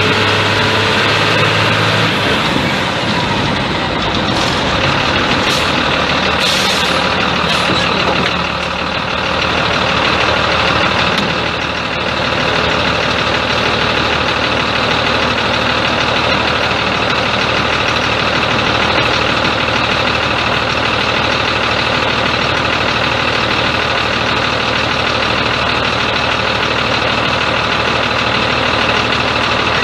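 Truck engine running steadily. A few brief clicks or rattles come between about four and eight seconds in.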